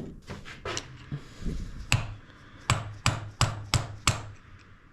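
Hammer blows, a faint knock or two and then from about two seconds in a steady run of sharp taps, about three a second, seating the new handlebar mounts all the way down.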